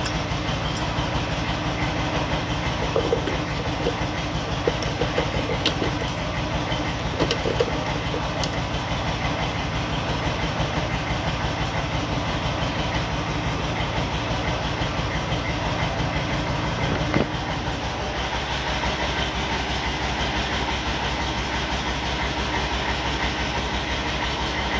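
A steady low mechanical drone, like a motor running nearby, with a few light metallic clinks as steel gearbox shafts and gears are handled. The drone's low hum shifts in tone about three-quarters of the way through.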